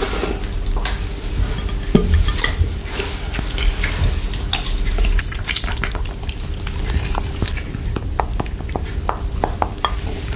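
Close-miked wet mouth sounds of licking a chocolate lollipop with whipped cream: a steady run of small sticky clicks and smacks.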